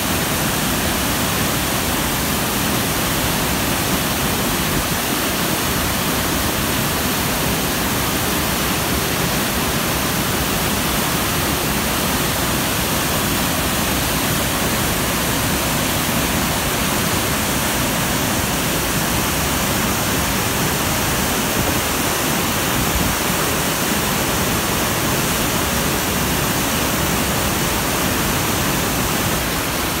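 Nunobiki Falls in flood, swollen by record rainfall: a loud, steady rush of a large volume of muddy water crashing into the plunge pool.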